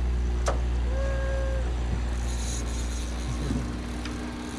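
Boat motor running with a steady low hum. A sharp click comes about half a second in, and a short, clear, held tone follows about a second in.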